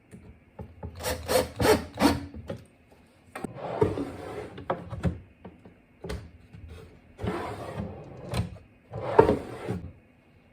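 Wooden parts rubbing and scraping against each other in several separate bouts, with a run of quick strokes about a second in and a few sharp knocks between the longer scrapes.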